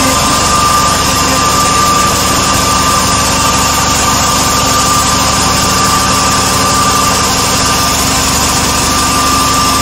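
Motor-driven alternator set running steadily: a continuous machine hum with a steady high whine.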